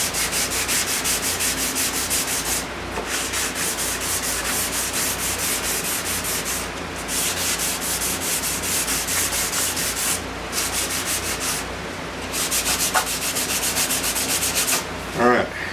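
Hand sanding wood with fine 320-grit sandpaper: quick back-and-forth strokes rasping along the end-grain edges of raised-panel door parts, in several runs with short pauses between them. A box fan hums steadily underneath.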